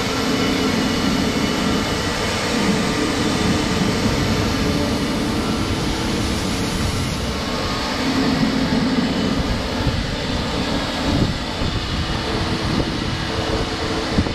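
Steady drone of a grain dryer and grain-handling machinery running, a continuous fan-like roar with several steady hums in it.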